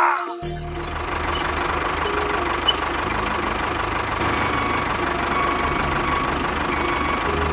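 Tractor engine running steadily with a low pulsing rumble, starting about half a second in.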